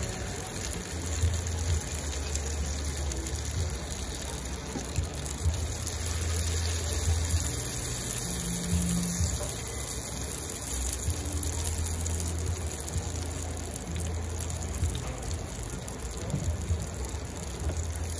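Oil sizzling steadily as spoonfuls of vegetable-and-egg fritter batter fry in a nonstick frying pan, with the odd light tap of the spoon against the pan.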